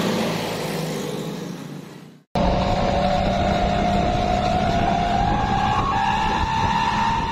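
Vehicle engine sound fading away and cutting off about two seconds in, then a truck engine sound effect pulling away, its whine rising slowly and steadily in pitch as it accelerates.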